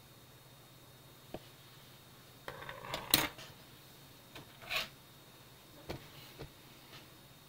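Small screws and a screwdriver being handled on a hard surface: a knock about a second in, then a cluster of clicking clatter with one sharp click near the middle, followed by a few lighter clicks and a brief scrape.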